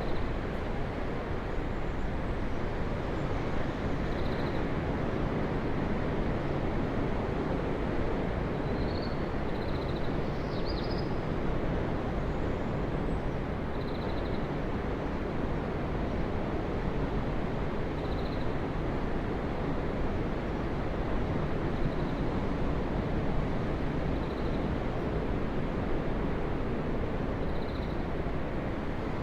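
Ocean surf: a steady, unbroken wash of waves, with faint short high chirps every few seconds.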